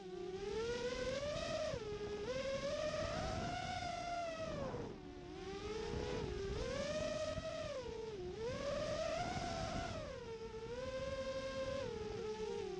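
FPV racing quadcopter's brushless motors (2300 KV) spinning DAL Cyclone 5x5-inch props, a buzzing whine whose pitch climbs and falls about every two seconds as the throttle is worked in flight.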